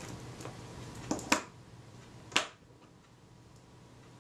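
Small sharp metal clicks of a jeweller's screwdriver working against the metal viewfinder housing of a Kodak Retina IIIc while the screw holding the rear eyepiece glass is undone: a quick pair about a second in, the second the loudest, and one more click at about two and a half seconds.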